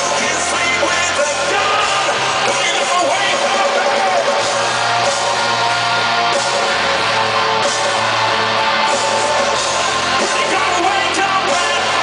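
Live rock band playing: a male singer singing into a microphone over electric guitar and drums, heard from among the audience.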